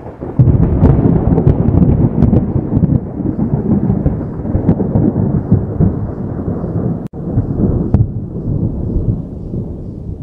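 Thunder sound effect: a loud rolling rumble that starts suddenly about half a second in, drops out for an instant about seven seconds in, then resumes and fades.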